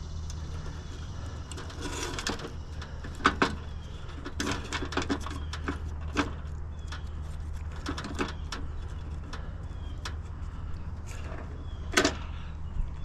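Steady low engine hum with scattered knocks and clatters, the loudest a sharp knock about three seconds in and another near the end.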